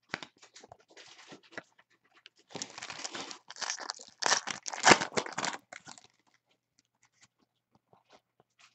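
Crinkling and tearing of a foil trading-card pack wrapper as cards are handled, in dense crackly bursts over the first six seconds, then only faint scattered ticks.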